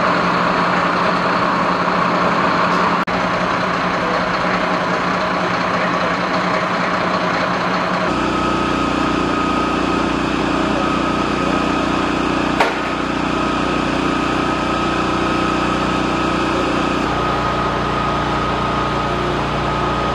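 Vehicle engine idling steadily. About eight seconds in, a steady low hum and a thin high whine join it, and a single sharp click comes a few seconds later.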